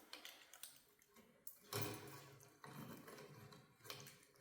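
Quiet handling of light-fixture hardware: a few faint clicks early, a short soft knock about two seconds in, then light rustling.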